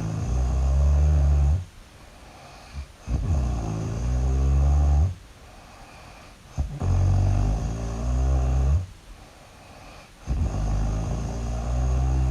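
Loud snoring: four long, low snores, each about two seconds, repeating about every three and a half seconds with short quieter breaths between them.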